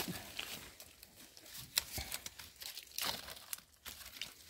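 Dry forest litter rustling and crackling irregularly, with a few sharper snaps along the way.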